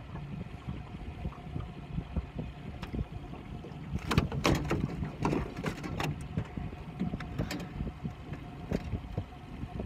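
Knocks and handling sounds in a small boat, loudest about four to six seconds in, over a steady low rumble of wind and water. A faint steady hum comes in a little past halfway.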